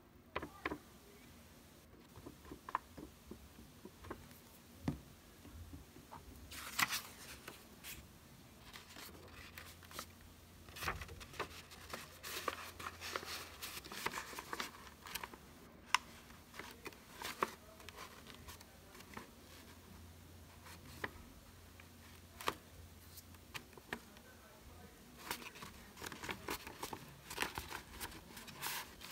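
Construction paper being handled and pressed together: rustling and crinkling in bursts, with scattered small taps and clicks.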